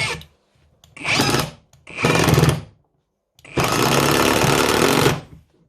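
Kimo 20V cordless impact driver hammering as it drives a Torx wood screw into a 2x4, in separate trigger bursts: two short ones about a second apart, then a longer run of nearly two seconds.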